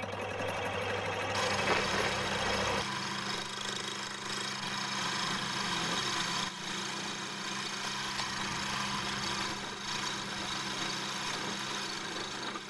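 Small metal lathe running with a steady motor hum while the tool, fed by hand at the carriage and cross-slide wheels, takes a shallow cut on a sector arm mounted to the faceplate. A hiss of cutting noise comes in after a second or so, and the deep part of the hum drops away about three seconds in.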